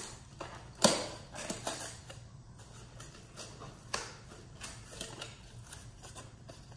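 Cardboard packaging being handled: scattered taps, knocks and rustles of cardboard flaps and inserts, the loudest a sharp knock about a second in.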